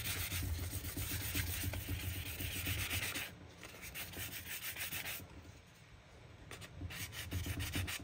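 400-grit sandpaper rubbed lightly over the cured epoxy coat of a tumbler in quick back-and-forth strokes, smoothing down a spot where the vinyl underneath is sticking up. The rubbing breaks off briefly about three seconds in, then again for about a second past the middle, and picks up once more near the end.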